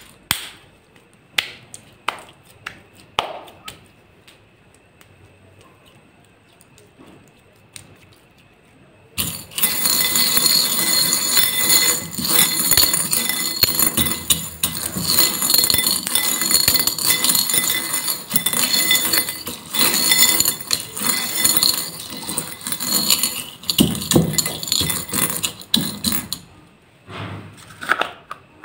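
Sticky slime worked by hand, giving a few short clicks. From about nine seconds in comes a dense, continuous clinking of small beads against a cut-glass bowl, which stops shortly before the end.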